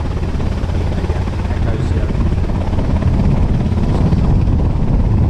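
Aircraft running steadily: a loud, low rumble with a fast throb, growing slightly louder in the second half.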